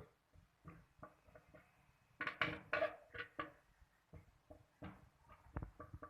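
Candlenuts being charred over a flame until their oil seeps out, giving faint, irregular clicks and crackles. The clicks bunch together after about two seconds and come as a few sharper ticks near the end.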